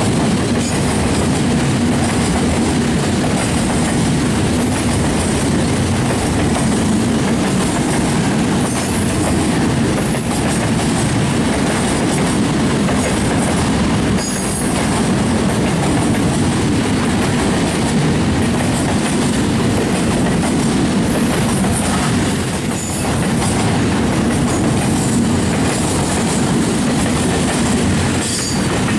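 Container freight train's loaded flatcars rolling past close by: a steady loud rumble and clatter of steel wheels on the rails, with a faint high wheel squeal a few times.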